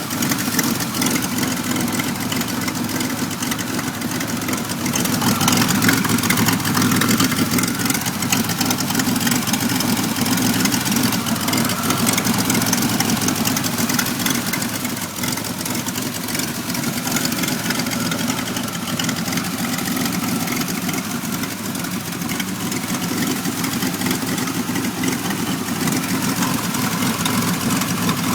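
1991 Pontiac Firebird's 3.1-litre V6 idling roughly, a rough idle the owner has not yet traced. The sound gets a little louder for a few seconds about five seconds in.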